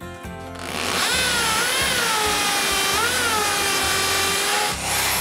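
Bosch PSB 650 RE electric drill boring a tile bit into a ceramic wall tile: a grinding hiss over a motor whine that wavers in pitch as the load changes. It starts about a second in and dips briefly near the end.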